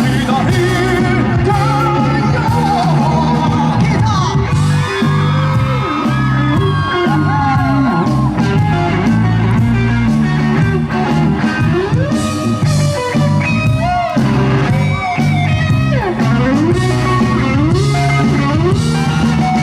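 Live rock band playing an instrumental stretch without lyrics: an electric guitar lead with sliding, bent notes over bass and drums.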